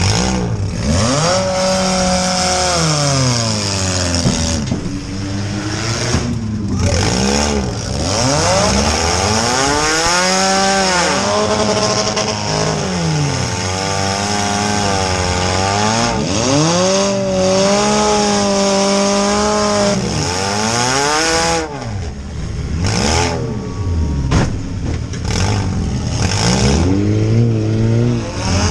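Compact demolition derby car's engine revving up and falling back again and again, held at high revs for a few seconds at a time, heard from inside the stripped cabin.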